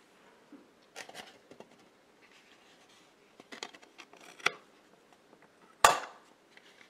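Scattered small clicks, taps and rustles of hands handling things at a fly-tying vise and moving a foam block of flies. The sharpest click comes about six seconds in.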